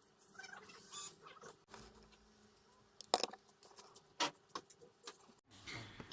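Faint scratching and a few sharp clicks of small tools and drone parts being handled at a workbench.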